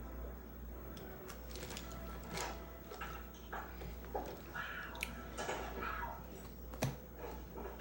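Faint room noise over a steady low hum, with scattered small clicks and knocks.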